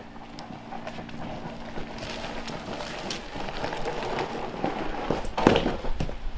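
Footsteps crunching through snow, coming closer and getting louder, then a heavy thump about five and a half seconds in as a carried firewood log is dropped.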